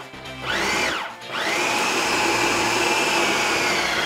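Food processor motor pulsing on a soft, sticky bread dough: a short burst whose whine rises and falls, then, from about a second in, a longer run that holds a steady pitch.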